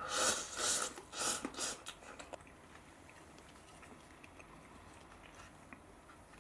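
Instant cup noodles slurped in three quick loud pulls, then a few softer ones. After that only faint chewing and small clicks of plastic chopsticks against the cup.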